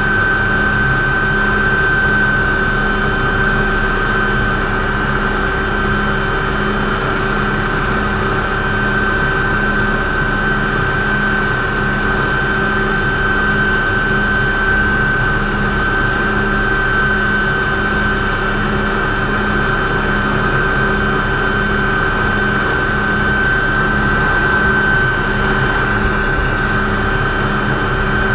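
Cockpit noise of a McDonnell Douglas MD500C (Hughes 369HS) turbine helicopter flying low: a steady high turbine whine over the constant rumble and beat of the main rotor, loud and unchanging throughout.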